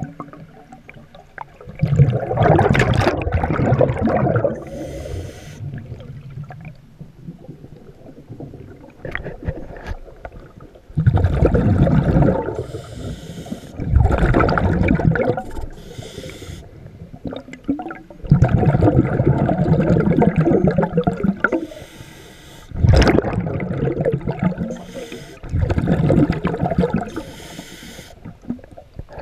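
An underwater diver's breathing through a regulator: six loud bubbling rushes of exhaled air streaming past the microphone, each one to three seconds long, with short hissing inhales in between.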